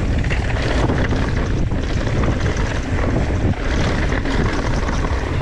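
Wind rushing over the camera microphone and mountain bike tyres rumbling on a rough dirt trail at speed, with steady small knocks and rattles from the bike over the bumps.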